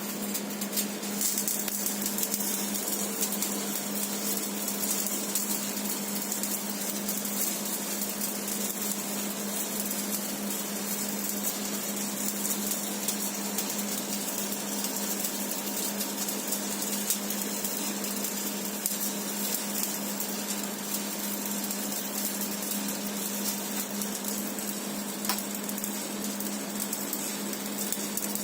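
Stick (shielded metal arc) welding with a 4 mm MAGMAWELD EM-165 electrode on steel pipe: the arc crackles and hisses steadily as the fill pass is laid. A steady low hum runs underneath.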